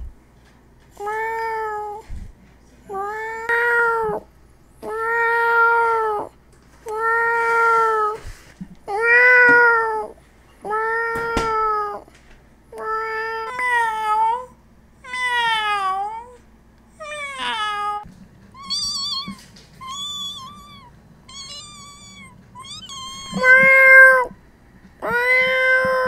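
Domestic cats meowing over and over, one meow about every second and a half. Several meows bend down and back up in pitch, and a short run in the middle is higher and thinner before full, loud meows return near the end.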